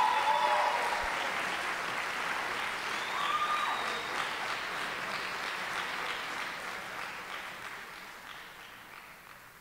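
Audience applauding at the end of a jazz band's performance, dying away near the end.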